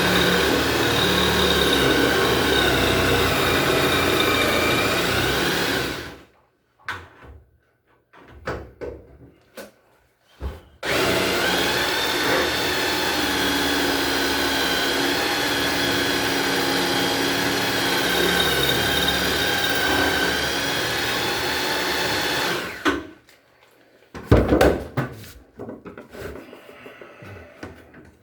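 Electric drill motor running in two long stretches, its pitch wavering slightly under load, with scattered clicks and knocks in the gap between them and after it stops.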